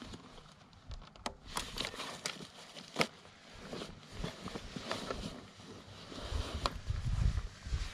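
Hands rummaging in a soft fabric motorcycle bag: rustling with scattered sharp clicks, the sharpest about three seconds in, and dull low bumps near the end.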